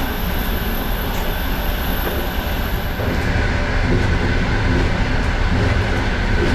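Passenger train running on the rails: a steady rumble with hiss above it, and a thin high whine that stops about three seconds in.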